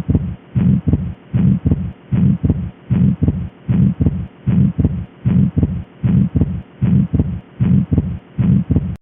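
Recorded heart sounds as heard through a stethoscope: a steady two-part lub-dub repeating a little faster than once a second, each beat a longer low thud followed by a sharper, shorter one.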